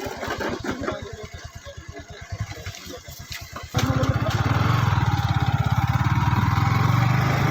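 Motorcycle engine running at low revs with a steady putter, then opening up sharply a little past halfway and running louder and faster.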